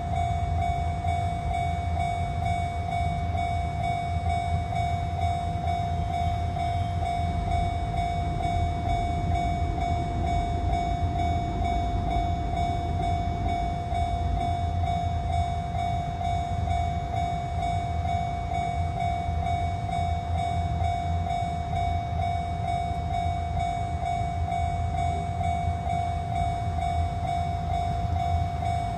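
Japanese level crossing's electronic warning bell ringing steadily throughout, over the continuous low rumble of a train passing: an EF210 electric locomotive hauling Tokyo Metro 18000 series cars.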